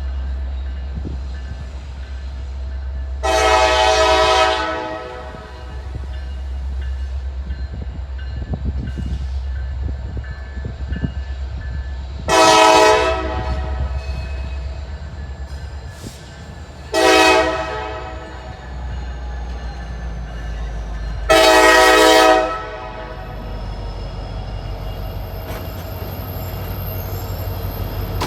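Diesel freight locomotive sounding its multi-chime air horn in four blasts, long, long, short, long, the standard signal for a grade crossing, over the steady low rumble of the train passing.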